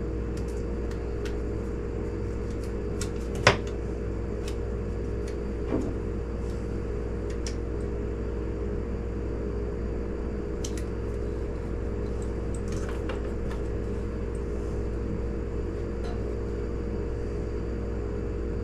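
Steady low background hum with a few light clicks of glass bottles and label stickers being handled. One sharp click comes about three and a half seconds in.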